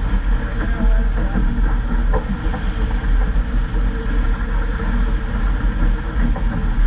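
Wind noise on a GoPro's microphone over the steady rush and splash of water along the hull of a VJ12 (Vaucluse Junior) sailing dinghy running fast under spinnaker.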